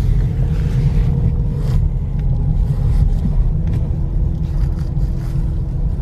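Car cabin noise while driving slowly: a steady low rumble of engine and tyres, with a few faint clicks.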